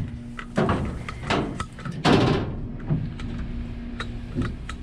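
Footsteps on the ship's steel deck and gratings: four heavy steps about three-quarters of a second apart, the third the loudest, with small knocks and clicks between them, over a steady low hum.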